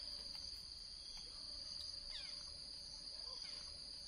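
Insects buzzing in a steady high-pitched drone, with a bird giving a few short chirps that slide downward, near the start and again about two seconds in.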